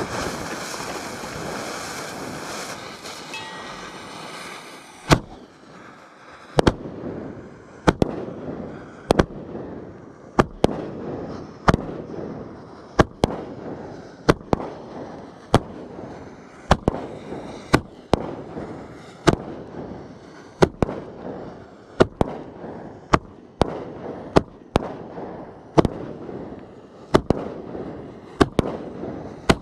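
A 500-gram firework cake firing. It opens with a loud hiss for about the first five seconds, then fires single shots at a steady pace of roughly one every 1.2 seconds. Each shot is a sharp crack followed by a spray of crackling.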